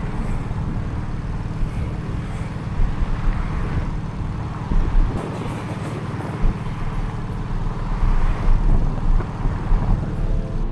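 Engine and road noise inside the cabin of a moving car, steady with a few short, louder low thumps.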